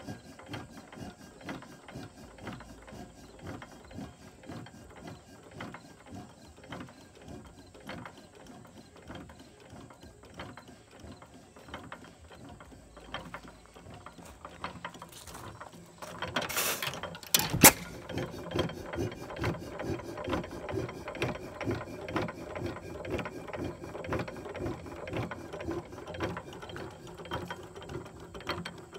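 6 hp Associated hit-and-miss engine running, its gears and valve gear clattering in a fast steady ticking. About two-thirds through there is a noisy burst and one sharp loud bang, and the mechanical clatter is louder after it.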